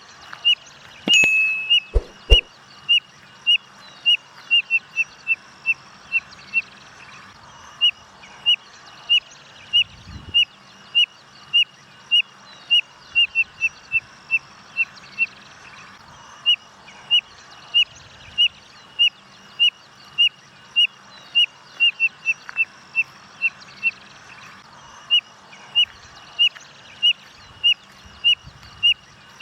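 Spotted nothura (codorna-amarela) calling: a long series of short, high peeping whistles, one or two a second, running quicker in spells and pausing briefly now and then. Two sharp knocks near the start.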